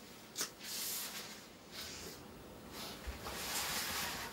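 Sniffling and heavy breaths of a person crying, in a few separate breaths with a lull in the middle.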